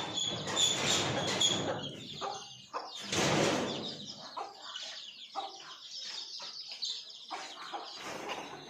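Desi chickens clucking, with high repeated chirps in the first second or so. There is a brief loud rustling burst about three seconds in, then scattered short clicks and chirps.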